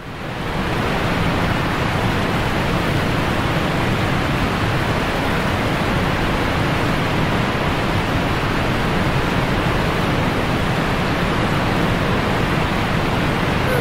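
Rushing river water: the steady noise of whitewater flowing past, fading in at the start.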